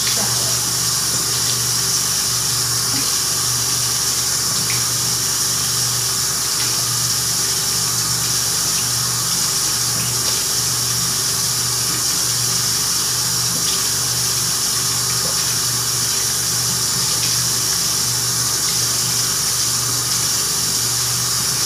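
Bathroom sink tap running steadily, the water falling into the basin over a rabbit being washed, with a steady low hum underneath.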